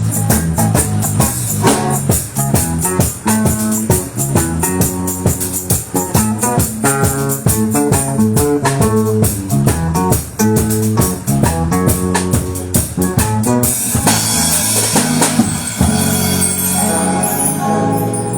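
Live band playing an instrumental passage: a drum kit keeps a steady beat under bass and guitar notes. About fourteen seconds in, the beat stops and the chords ring out and fade.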